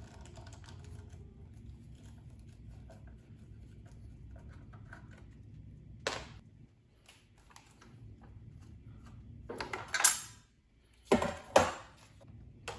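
Screwdriver work and metal parts being handled on a Razor E325 scooter's frame while a bar is unbolted: faint handling noise, then a few sharp metallic clinks and knocks, one about six seconds in and the loudest near the end.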